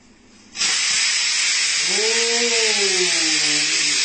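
Pressure cooker whistle going off: steam bursts suddenly from the weight valve about half a second in and keeps up a loud, steady hiss, the sign that the cooker has come up to pressure. From about two seconds in, a wavering tone rises and then falls over the hiss.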